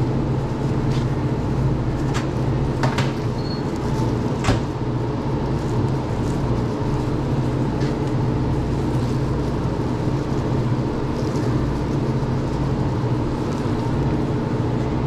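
Steady low machine hum, with a few sharp clicks and knocks about two, three and four and a half seconds in.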